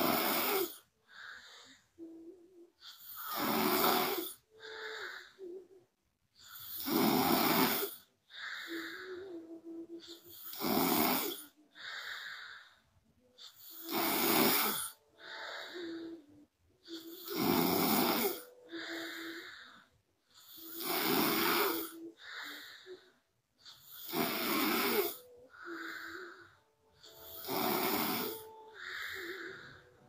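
A sleeping woman snoring in a steady rhythm, a loud snoring breath about every three and a half seconds. Each is followed by a shorter, quieter breath with a faint steady tone.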